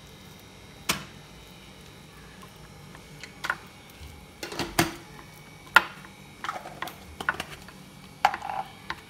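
Wooden chopsticks tapping and scraping against a ceramic bowl as an egg is stirred into thick choux pastry dough: irregular sharp clicks, a few at first and then coming quickly in the second half.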